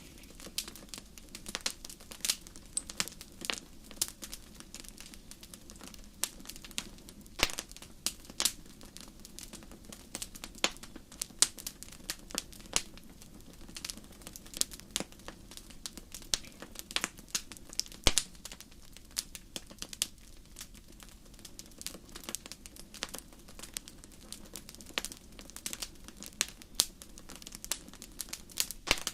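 Wood fire in a fireplace crackling: irregular sharp pops and snaps, several a second, over a steady low rumble of the flames.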